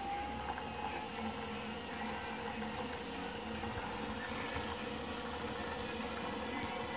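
A 24-volt electric scooter motor running at a steady speed, driving the Unimat SL1000's milling/drilling spindle through its belt and pulley, with a steady hum.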